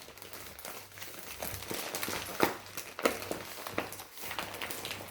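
Packaging wrap crinkling and rustling in irregular bursts as a small doll is worked free of tight wrapping by hand, with the sharpest crackles about halfway through.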